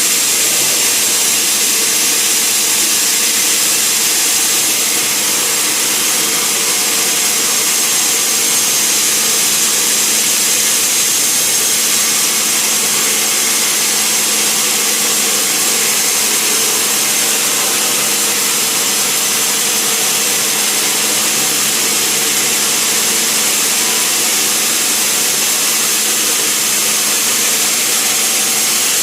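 Sawmill saw running steadily, cutting through timber, with a constant high-pitched hiss over a steady machine hum, without a break.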